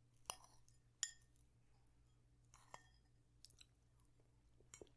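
Faint eating sounds: quiet chewing of falafel with a few sharp clicks, the clearest about a third of a second and a second in.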